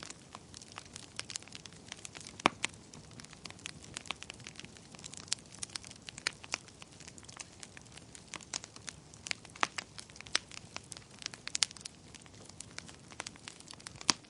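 Wood fire crackling in a fireplace: a soft steady hiss under constant irregular snaps and pops, a few of them much sharper than the rest.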